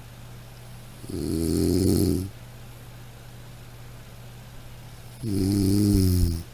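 Snoring: two slow snores about four seconds apart, each lasting just over a second, with a low rattling pitch and a breathy hiss.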